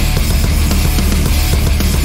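Loud heavy rock background music with a fast, steady beat.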